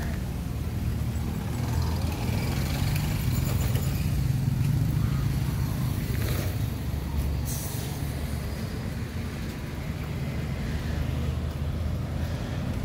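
Low, steady rumble of motor-vehicle traffic on a city street, loudest a few seconds in, with a couple of faint clicks near the middle.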